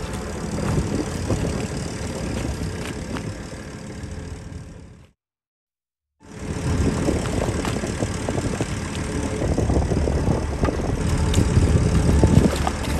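A fishing boat's engine running, with water churning and splashing against the hull. The sound fades out to complete silence for about a second near the middle, then fades back in and grows a little louder toward the end.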